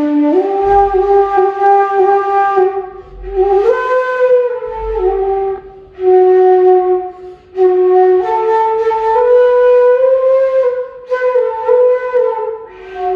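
G bass bansuri bamboo flute played slowly by a beginner: a simple melody of long held notes moving in small steps, broken by short pauses for breath between phrases.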